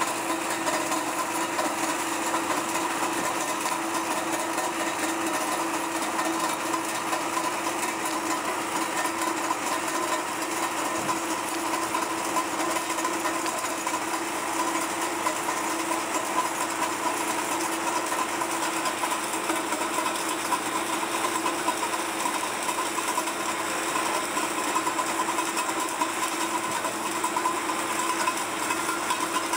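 MTZ-82.1 tractor's four-cylinder diesel running steadily while its hinged rotary cutter spins against the road, breaking up ice: a continuous, even mechanical noise.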